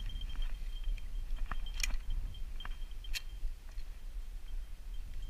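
Wind rumbling on the camera microphone and the rustle of walking through dry field weeds. A faint high tone comes and goes, and two sharp clicks fall about two and three seconds in.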